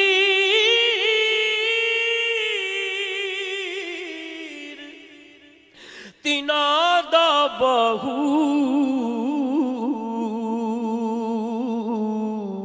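A man singing a Punjabi devotional poem unaccompanied, drawing out two long held notes with a wavering, ornamented pitch. The first fades away about five seconds in. After a short break the second, lower note begins and slides gradually lower until near the end.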